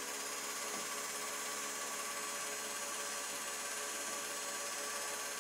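Home movie projector running, giving a steady, unchanging hum and hiss.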